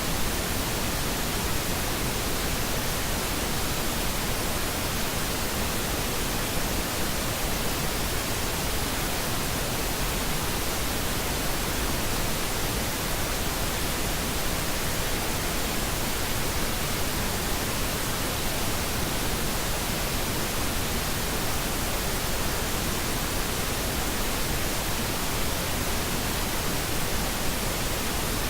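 Steady pink noise: an even, unchanging hiss across all pitches, used as the masking bed of a subliminal audio track.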